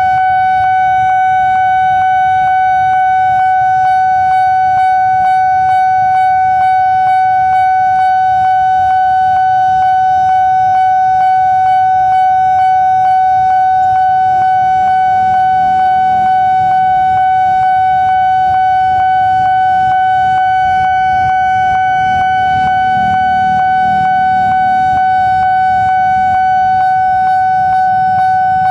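Railway level crossing warning bell sounding continuously while the crossing is closed for an approaching train: one steady, high ringing tone with a regular beat.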